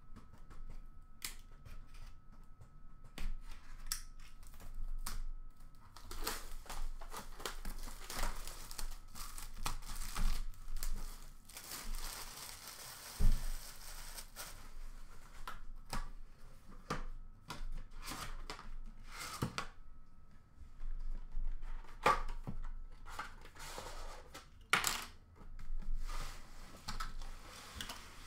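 Cardboard packaging and tape being torn and peeled as a box is opened, with rustling and irregular knocks from handling the carton. About halfway there is a longer stretch of tearing and scraping with one dull thump.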